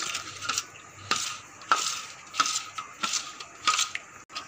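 Metal spoon stirring thick yogurt in a steel plate, scraping and clinking against the metal about every half-second.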